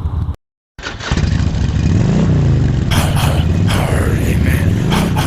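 Motorcycle engine under way, its pitch rising and falling about two seconds in and climbing again near the end, with wind buffeting the microphone. The sound drops out completely for a moment just after the start.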